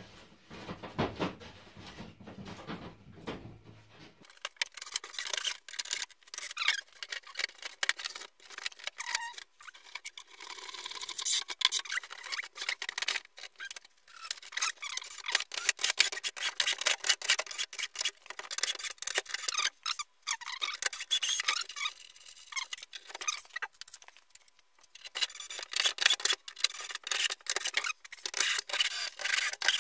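Stiff foam insulation panels and plastic screws rubbing and creaking against each other as they are worked by hand into line. A dense, scratchy crackle starts about four seconds in and comes in spells with short pauses.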